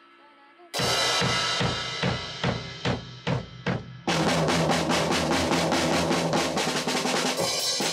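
Acoustic drum kit played in time with music: it comes in suddenly about a second in with a crash and a steady beat, then gets fuller and busier about four seconds in.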